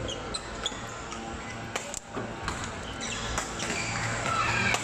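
Badminton rally: several sharp racket-on-shuttlecock hits at irregular intervals, with short high squeaks of shoes on the court floor, over a steady hall hum and background din.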